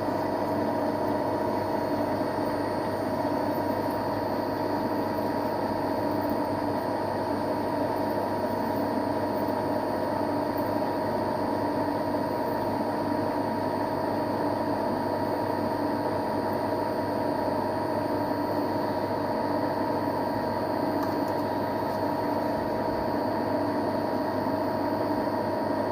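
Metal lathe running steadily, its motor and gearing giving a constant hum with a few steady tones, while a parting tool cuts off a pin and rolls the chip.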